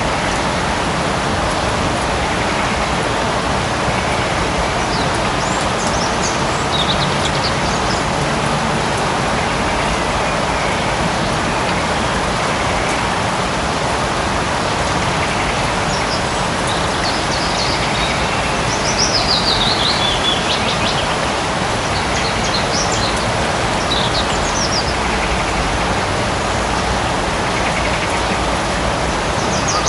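Light rain falling steadily in a forest, with birds calling now and then, short chirping whistles.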